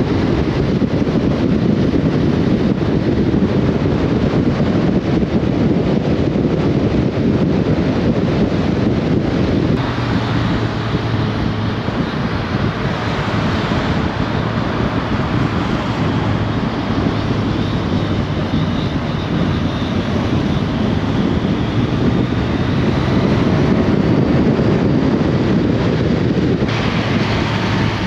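Wind rushing over the microphone of a camera mounted on a moving motorcycle, with the motorcycle's engine humming steadily underneath.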